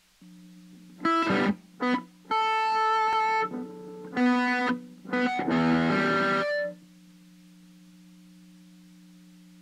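Electric guitar played through a solid-state guitar amp and recorded with a Samson C01U USB condenser microphone: a handful of short chords and notes between about one and seven seconds in. A steady low hum sits under the playing and is left on its own for the last few seconds.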